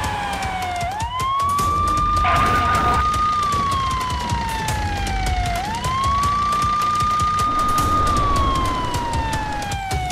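Police car siren wailing: each cycle climbs quickly to a high note, holds it for a couple of seconds, then slides slowly down, repeating about every four and a half seconds.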